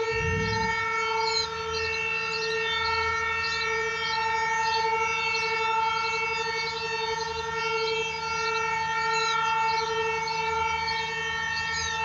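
Outdoor warning siren sounding a steady, unbroken tone during a siren test, gently swelling and fading in level. Short high chirps sound repeatedly above it.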